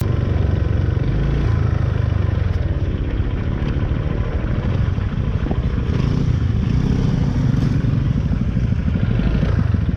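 A motorbike riding along a road: steady engine and road noise with a heavy low rumble, starting abruptly and holding without a break.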